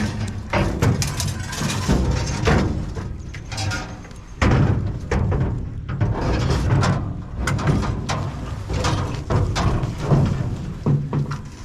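Irregular knocks and clatter of scrap being handled and loaded, over a steady low rumble of wind on the microphone.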